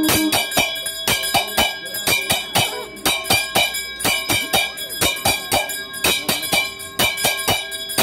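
Brass temple hand bell rung rapidly and continuously during the abhishekam, about four strokes a second, with a bright, lingering ring. A held low tone cuts off just after the start.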